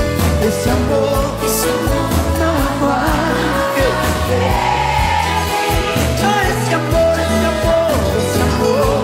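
Sertanejo song performed live: a male lead vocal over a band of acoustic guitars, accordion and drums, with a steady beat.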